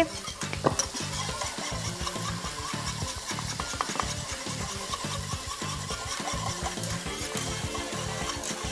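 Wire whisk stirring sauce in a metal saucepan, the wires scraping round the pan in quick, rhythmic strokes.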